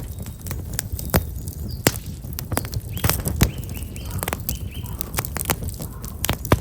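Black locust firewood burning in an open fire, crackling with irregular sharp pops over a low steady rumble. Small birds chirp a run of quick high notes in the middle.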